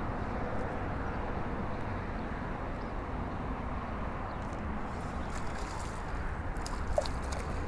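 Steady outdoor background noise with a low rumble, and a few faint clicks late on.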